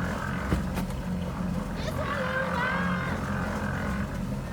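An engine running steadily with a low drone, with people's voices in the background and a brief knock about half a second in.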